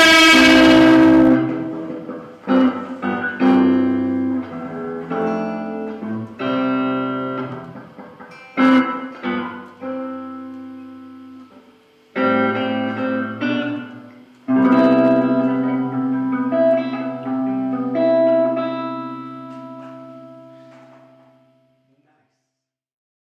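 Two Les Paul-style electric guitars playing the song's ending: a full, loud passage stops short about a second in, then single chords are struck one by one and left to ring out. The last chord fades away shortly before the end.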